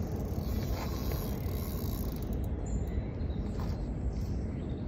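Fishing reel being worked as a carp is played on a bent rod, a light mechanical whirr and click over a steady low rumble.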